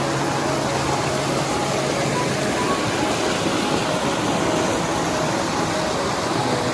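Mountain stream rushing steadily over boulders in small whitewater cascades, with soft background music playing over it.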